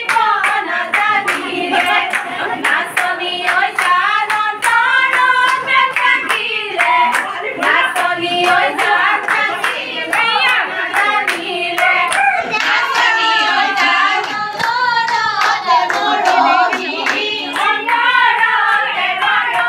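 A group of women singing a folk wedding song together, with steady, evenly spaced hand clapping keeping the beat for a dance.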